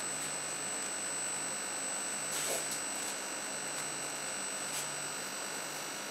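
Steady electrical hum with a thin high whine, broken by a brief noisy rustle about two and a half seconds in and a faint click near five seconds.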